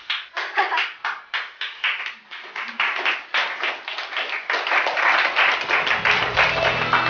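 A group of people applauding: separate claps at first that quickly thicken into steady applause. Background music comes in near the end.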